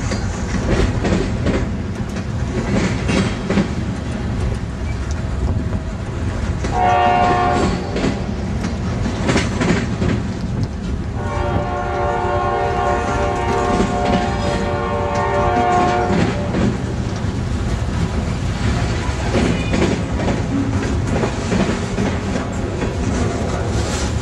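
Freight train's boxcars rolling past with a steady clatter of wheels over rail joints. The lead Norfolk Southern Dash 9-40CW's K5LA air horn sounds twice: a short blast about seven seconds in, then a long one of about five seconds starting around eleven seconds.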